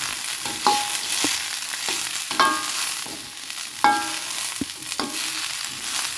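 Tempeh and tofu cubes with whole chillies sizzling in a wok while a spatula stirs and scrapes through them. The spatula knocks against the pan, three times with a short ringing clink.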